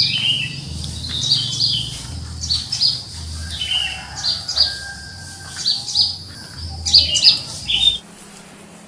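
Birds chirping in quick, repeated high calls, over a low soft pulse about once a second. It all cuts off suddenly near the end.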